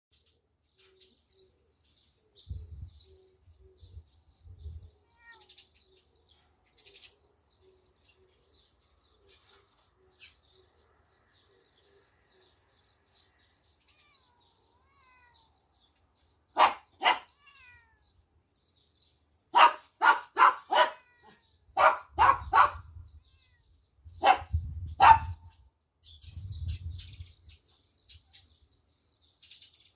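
Eurasian tree sparrows chirping faintly, then from a little past halfway eleven loud, short, sharp barks in clusters of two to four.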